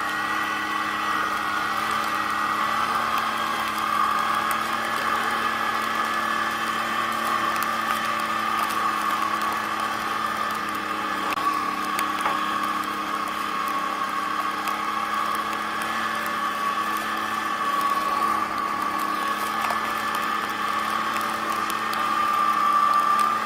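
ATV running at a steady pace with a steady high whine over the engine note. The whine gets a little louder and higher near the end.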